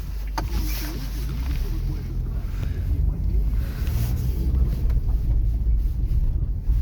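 Steady low road and tyre rumble heard inside the cabin of a Chery Tiggo 2 while it drives.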